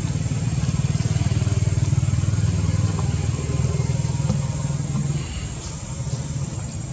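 An engine running with a steady low drone, quieter from a little after five seconds in.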